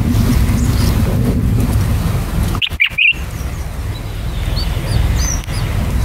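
Red-whiskered bulbuls at the nest giving short high chirps: a few loud ones about three seconds in, then faint squeaks in the second half. A steady low rumble lies underneath.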